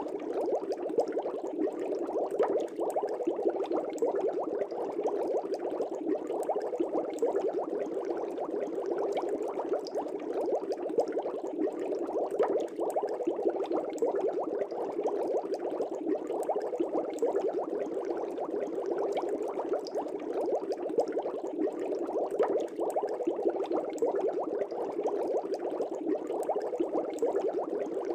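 Aquarium air bubbles rising and breaking at the water surface in a fish tank, a steady dense bubbling with many small pops.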